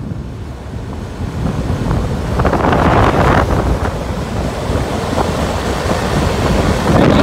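Wind buffeting the microphone of a moving motorcycle, a steady heavy rumble over the engine and road noise, swelling louder about three seconds in and again near the end.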